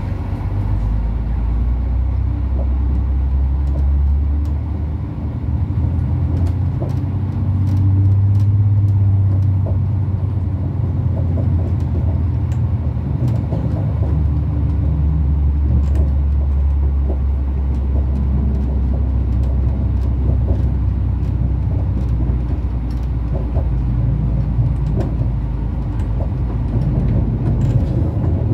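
Interior sound of a Bombardier AGC bi-mode railcar (TER B 82500 series) under way on diesel power. A steady low engine rumble is heard, with scattered light clicks from the wheels on the track. The rumble swells louder about eight seconds in.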